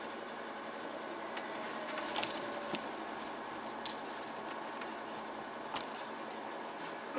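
Quiet room tone of a darkened hall: a steady low hiss with a few faint scattered clicks and rustles, about two seconds in, near four seconds and near six seconds.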